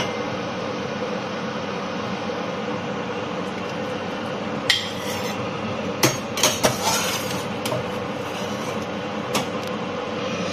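A metal slotted spoon clinks against a stainless steel saucepan several times as boiled edamame pods are scooped out, with a cluster of knocks about six seconds in. A steady rushing hum runs underneath.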